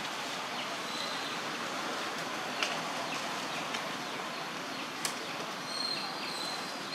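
Steady outdoor hiss of open-air ambience among trees, with a couple of sharp clicks and a few faint, short, high-pitched chirps.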